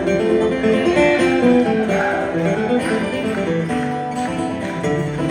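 Acoustic guitar flatpicking a quick run of bluegrass notes in a live instrumental passage.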